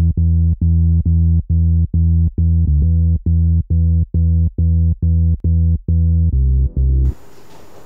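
Synthesizer music: a deep electronic note struck again and again, about twice a second, changing to a different note near the end and then stopping abruptly, leaving only a low steady background hiss.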